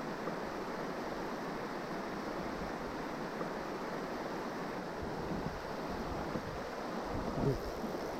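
Steady rush of river water flowing, with a short low thump near the end.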